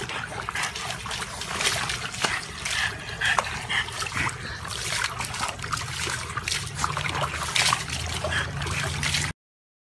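Water splashing and sloshing in a small plastic tub as a French bulldog wriggles around in it, with many quick splashes; the sound cuts off suddenly near the end.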